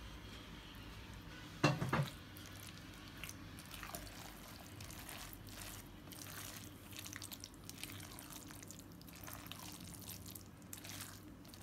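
Wet squelching and smacking of a thick white-sauce and seafood-vermicelli filling being stirred and folded in a glass bowl, in many short irregular sounds, with one louder knock about two seconds in.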